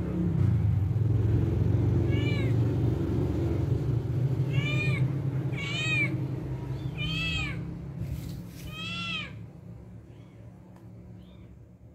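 Newborn kitten mewing: five short, high-pitched mews a second or two apart. A steady low rumble runs underneath and fades near the end.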